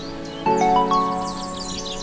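Background instrumental music of held, chiming notes, with a new chord struck about half a second in, and quick high bird-like chirps over it.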